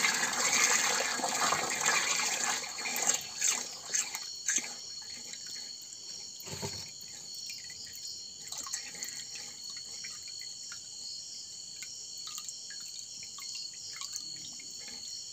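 Water jetting from a plastic float valve into a plastic water drum, sputtering a few times and cutting off about four to five seconds in as the float closes the valve on a full tank. After that there are only scattered drips into the water.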